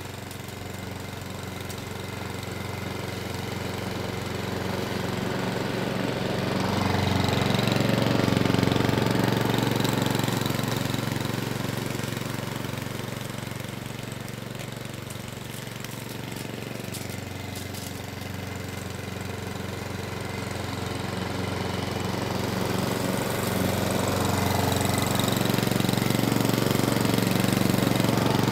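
Webb WER410HP petrol rotary lawn mower, its 132cc four-stroke OHV engine running steadily while mowing. It grows louder as the mower comes close about eight seconds in, fades as it moves away, then grows louder again toward the end.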